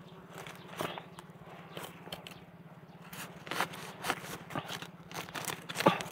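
Irregular crackling, scraping and snapping of dry bamboo and leaf litter as wild bamboo shoots are picked, with a sharper snap near the end.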